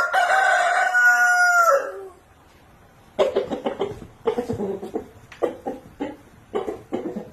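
A rooster crows once, a single long call of about two seconds that drops off at the end. About a second later come repeated short clucking calls in quick bursts.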